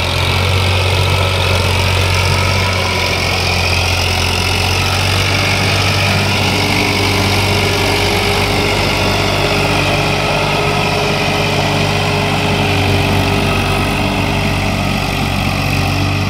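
Farmtrac 60 tractor's diesel engine running steadily under load as it pulls a trolley loaded with soil: a deep, even engine note that holds constant throughout.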